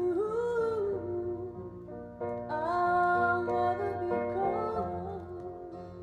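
Piano ballad: a woman's voice sings long, gliding phrases over sustained piano chords.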